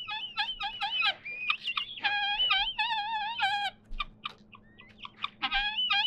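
Helmeted guineafowl calling: a flock chattering in many short, wavering high calls, with a few longer calls around the middle.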